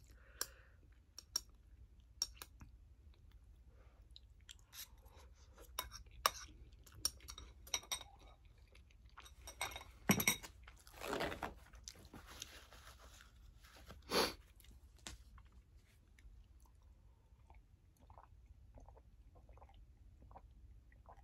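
A person eating instant noodles close to the microphone: soft chewing and wet mouth sounds with scattered small clicks, and a few louder mouth noises around the middle.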